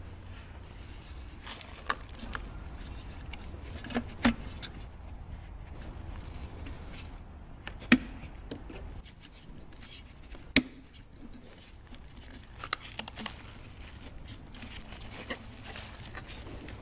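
Handling noise from a removed plastic car tail light assembly: several sharp plastic clicks and knocks with light rubbing as the housing and its bulb sockets and wiring are turned over in the hands. A low hum runs under the first half.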